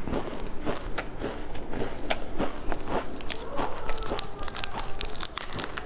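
Snack wrapper being handled and torn open by hand: a run of sharp crinkles and crackles that grows denser near the end.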